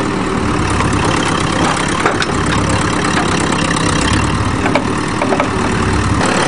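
Backhoe diesel engine running, its low rumble swelling and easing as it works, under a steady hiss of hard rain. A couple of sharp clicks or knocks about two seconds in and near the five-second mark.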